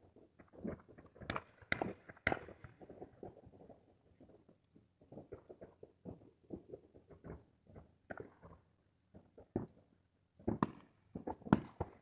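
Distant shotgun fire from waterfowl hunters: many dull, echoing shots at irregular intervals, some in quick succession. The shots are heavier about two seconds in and again near the end.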